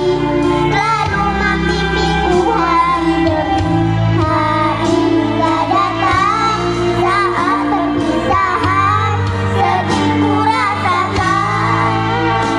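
A group of young children singing a song together over instrumental music accompaniment.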